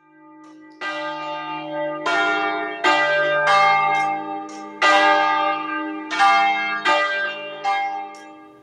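Church bells ringing: about nine strikes at uneven intervals, each ringing on and overlapping the next. The sound fades in at the start and fades out near the end.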